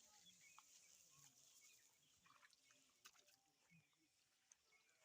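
Near silence: faint outdoor background with a few soft clicks and brief faint chirps.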